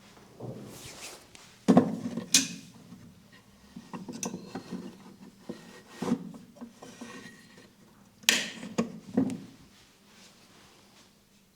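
Massage hand sounds: hands rubbing on skin and hair, with several sharp slaps or taps, the loudest about two seconds in and about eight seconds in.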